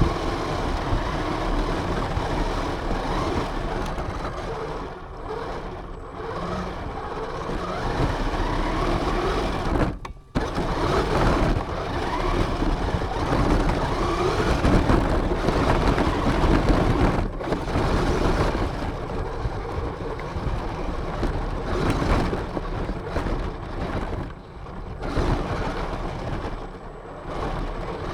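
Radio-controlled car driving, heard from a camera mounted on it: motor and drivetrain whirring with the pitch rising and falling as the throttle changes, over continuous rough rumbling noise. The sound briefly drops away about ten seconds in.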